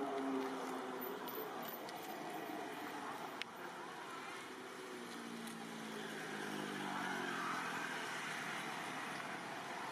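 A motor vehicle going by over a steady background of traffic noise, its engine pitch rising and then falling between about five and eight seconds in. A single sharp click about three and a half seconds in.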